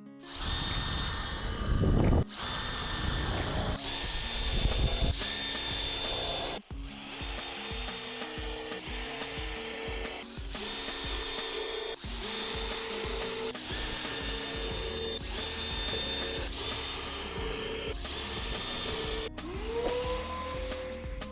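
Power-tool workshop noise in a run of short, abruptly cut clips: a motor running with a steady whine under a coarse cutting or grinding noise. Near the end a motor spins up, its whine rising and then holding.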